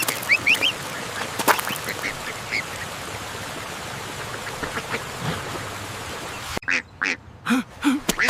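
Ducklings peeping in quick high chirps, most of them in the first second, over a steady hiss. Near the end the sound cuts abruptly to a run of short, louder calls.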